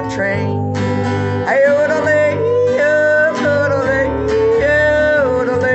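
Country music: acoustic guitar strumming under a sliding, held melody line.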